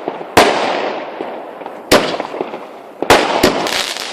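Fireworks bursting: four sharp bangs, two of them in quick succession near the end, each trailing off in a long rolling echo, with smaller pops and crackles between.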